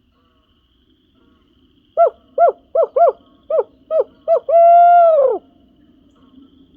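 A hunter's owl locator call imitating a barred owl, blown to make turkeys shock-gobble. About two seconds in comes a run of eight short, quick hoots, then one long hoot that drops in pitch at its end.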